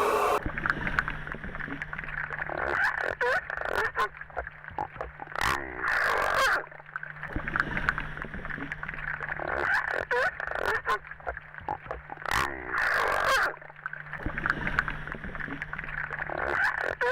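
Seals calling in a series of repeated calls, the longest and loudest about five and a half seconds in and again about twelve seconds in, over a steady low hum.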